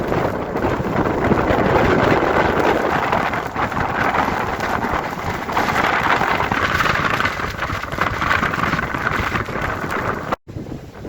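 Hurricane wind and driving rain, a loud, dense rush with gusty spatters, cutting off abruptly near the end.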